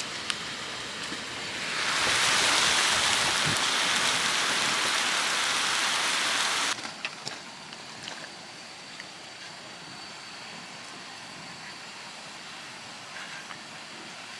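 A loud steady hiss that swells up early on and cuts off abruptly about six and a half seconds in, then the steady rushing of a mountain stream with a few faint ticks.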